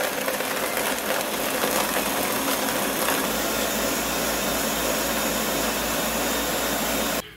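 Ninja Professional 1100-watt countertop blender running steadily at speed, blending ice with pineapple juice, coconut cream and evaporated milk into a piña colada. It cuts off suddenly near the end.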